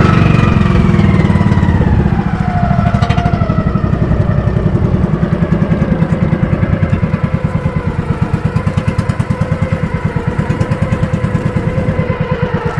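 Motorized outrigger fishing boat's small engine running under way. Its pitch falls over the first two or three seconds as it slows, then it settles into a steady pulsing chug.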